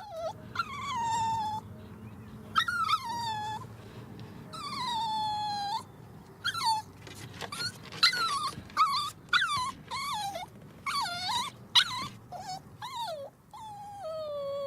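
A dog whining: long high whines that fall in pitch, then from about six seconds in a quicker run of shorter whines and yelps.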